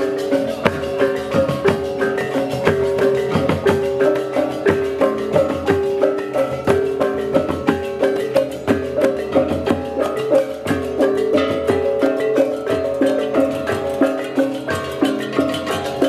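Balinese baleganjur gamelan playing: fast, dense strokes of metal percussion over steady ringing gong tones.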